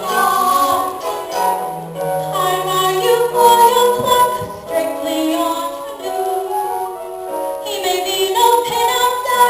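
Stage-musical song: voices singing a melody over instrumental accompaniment, with notes changing in steps and a sustained bass line underneath.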